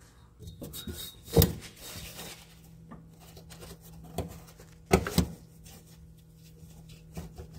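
A crankshaft position sensor being worked by hand out of its hole in a 1998 Jeep TJ Wrangler, knocking and scraping against metal as it catches on the body's pinch seam just above. There are a few sharp knocks, the loudest about one and a half seconds in and another about five seconds in, with rubbing between them.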